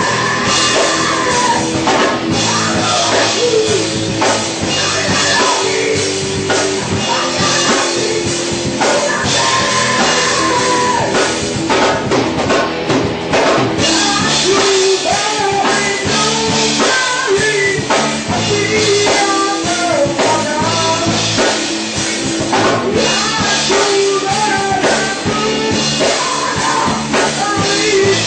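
Live rock band playing: a man singing over electric guitars and a drum kit with cymbals.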